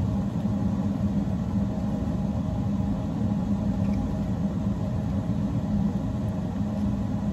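Steady low rumbling hum of a running machine or appliance, unchanging throughout.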